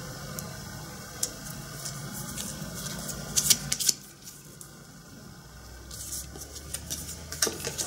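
Paper photo cards being handled and shuffled by hand: card stock sliding and flicking against card, with a few sharp clicks about three and a half seconds in and again near the end.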